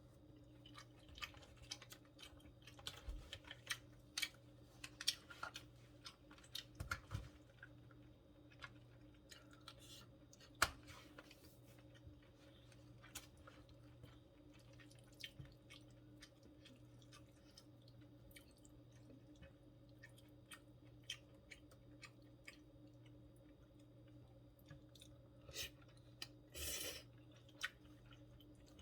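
Close-up chewing and mouth smacks of someone eating yachae-gopchang, chewy stir-fried pork intestines with vegetables. The smacks come often at first and then thin out, with a louder burst about a second long near the end, over a faint steady hum.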